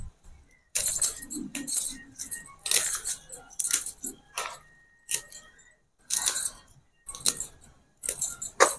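Gongura (sorrel) leaves being plucked from their stems by hand, crisp rustling and snapping at irregular intervals, with bangles clinking on the wrists.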